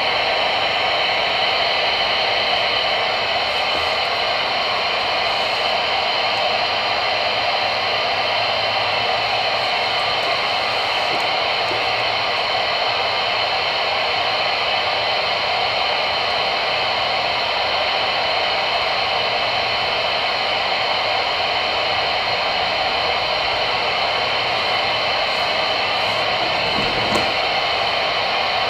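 Steady static hiss from a Voyage CB radio's speaker while it receives channel 22 on AM. The hiss comes on suddenly at the start, as the front-panel knobs are turned, and then holds even throughout.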